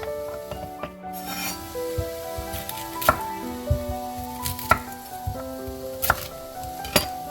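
A knife striking a wooden cutting board a few times, sharp separate chops about every second or so, over background music playing a slow melody.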